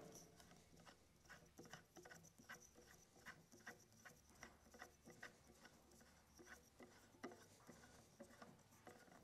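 Very faint, irregular small clicks and rubbing, a few a second, as a hand twists the silencer off the barrel of a Taipan Veteran 2 air rifle.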